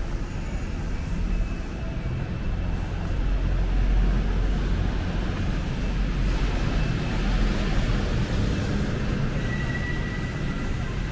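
Busy city road traffic passing: a steady low rumble of engines and tyres that swells about four seconds in and again a little later, with a short high tone near the end.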